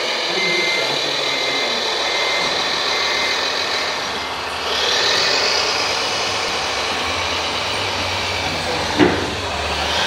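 Radio-controlled Mercedes-Benz six-wheel tipper truck running, its engine sound growing louder about four and a half seconds in. A row of short, evenly spaced beeps sounds over the first few seconds, and there is a single sharp knock about nine seconds in.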